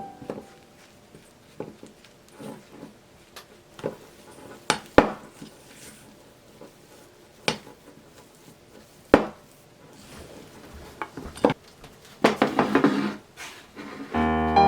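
Scattered knocks and clinks of kitchen utensils and dishes being handled, two of them sharp and loud, with a short rustling scrape near the end. Soft piano music comes back just before the end.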